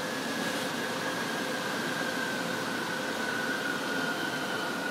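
DB class 423 S-Bahn electric multiple unit rolling in on a far track: a steady rail rumble and hiss under a thin electric whine that slowly falls in pitch as the train slows.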